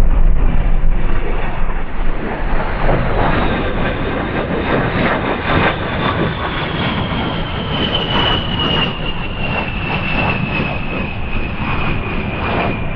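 Jet noise from an A-10 Thunderbolt II's twin General Electric TF34 turbofans, with a high whine that slowly falls in pitch from about three seconds in.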